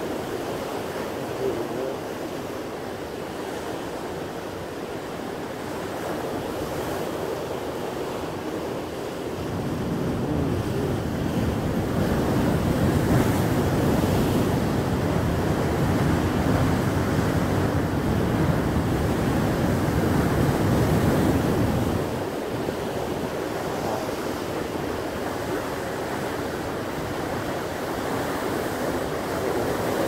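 Rough sea surf breaking and washing over shoreline rocks: a steady rushing noise that swells louder about a third of the way in and drops back suddenly about two-thirds through.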